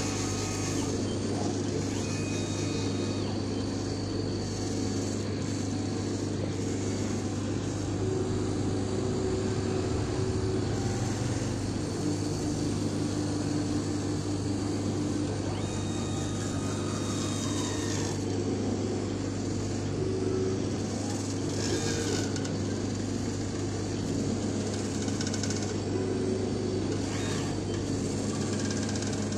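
Laser cutter running while it cuts a compressed foam sheet: a steady low hum from the machine, with the head's drive motors whining in short high tones and brief rising and falling glides as the gantry moves.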